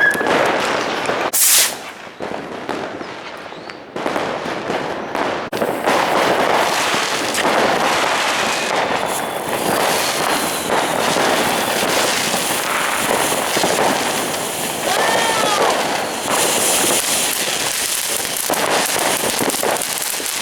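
New Year's Eve fireworks: a continuous din of firecrackers and exploding rockets crackling and popping, with one sharp loud bang about a second and a half in and a few whistling glides about three quarters of the way through.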